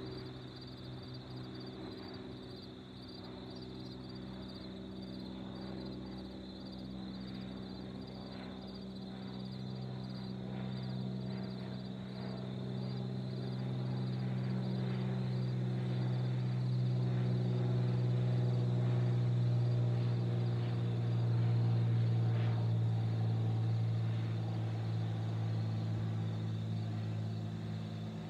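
Cessna 206 Stationair's six-cylinder piston engine and propeller droning overhead in a flyover, growing steadily louder to a peak about twenty seconds in and then easing slightly.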